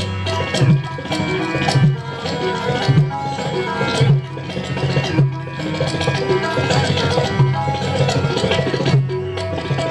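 Indian music played on a Roland Fantom X6 keyboard: a sustained melody over a tabla-style percussion rhythm with frequent sharp drum strokes.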